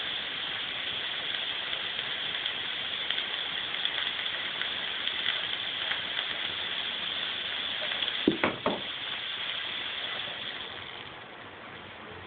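Steady high hiss of a fog machine pumping out fog, easing off near the end. A few sharp knocks come about two-thirds of the way through.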